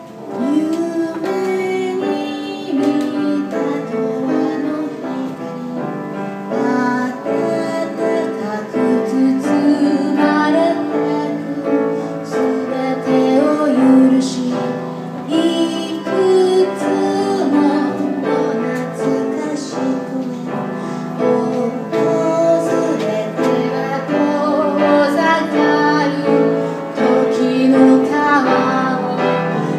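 A woman singing while accompanying herself on a grand piano, her voice coming in right at the start over the piano.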